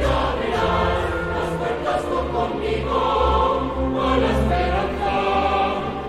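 Music with a choir singing held notes over a steady low backing.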